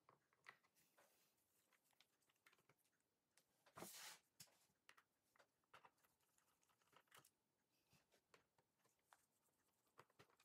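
Very faint, scattered clicks and small scratches of a Torx T6 screwdriver turning screws out of a laptop's bottom cover, with one brief louder noise about four seconds in.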